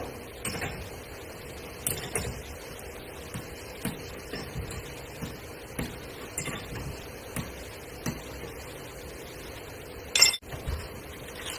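Hand spanner clinking and knocking against bolts and the steel body panels of a Toyota Hilux as the front fender and hinge-area bolts are worked, in scattered light clinks with one louder metallic knock about ten seconds in.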